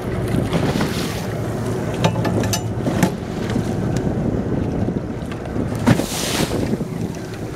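A fishing boat's engine running steadily under way, with wind buffeting the microphone and water rushing in the wake. A few small knocks, and a brief louder rush of wind or spray about six seconds in.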